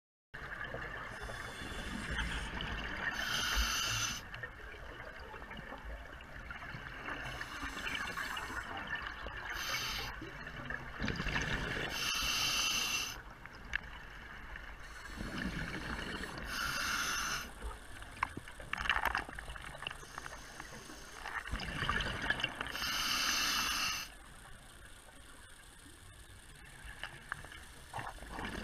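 Underwater sound of a scuba diver breathing through a regulator, with bubbling exhalations every few seconds over a steady hiss.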